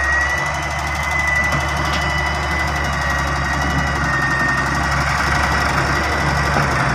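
Heavy-equipment diesel engine running steadily, with a thin high whine over the drone.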